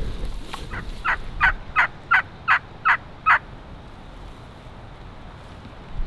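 A run of about eight wild-turkey yelps, evenly spaced at roughly three a second, each note sliding down in pitch, with wind noise behind.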